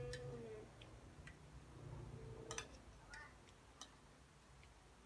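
Near-quiet room with a few scattered faint clicks and ticks. A voice trails off in the first half second.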